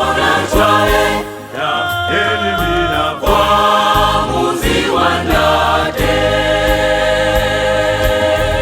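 Choir singing a gospel song in harmony over a steady instrumental backing, with long held notes in the second half.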